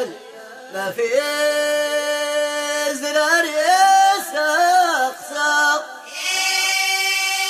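Amazigh ahwach singing: voices holding long notes with sliding ornaments between pitches, coming in again after a brief drop in level about a second in.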